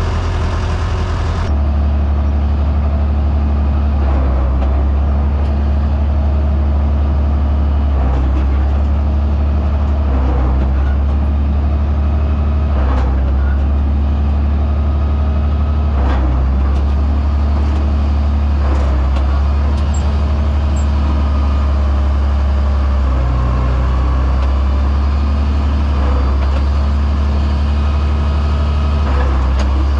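Combine harvester running steadily while harvesting corn: a heavy, low engine and machinery drone with a few faint knocks.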